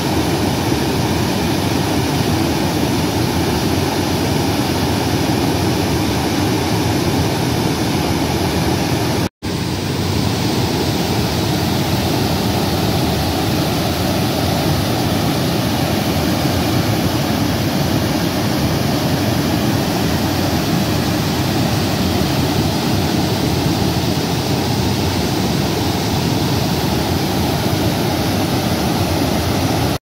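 Kern River floodwater, swollen by storm runoff, rushing over a low concrete weir and churning into whitewater: a loud, steady rush of water. It drops out for an instant about nine seconds in.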